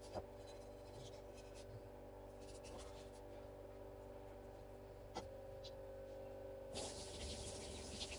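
Faint scraping with a few light knocks of a knife working small chub mackerel on a cutting board, over a steady hum. About seven seconds in, a steady hiss starts.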